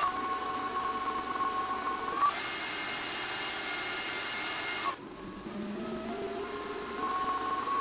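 AntMiner S9 Bitcoin miner's cooling fans running fast: a loud whine of steady tones over a rushing hiss. It jumps to a higher, harsher pitch about two seconds in, drops suddenly near five seconds, then creeps back up. The fans are changing speed to cope with the heat while the miner tests and tunes its ASIC chips during startup.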